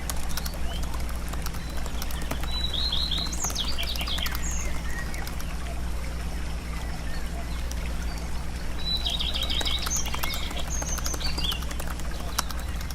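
Small birds chirping in two bursts of quick trills, one a few seconds in and one near the end, over a steady low hum and scattered light clicks.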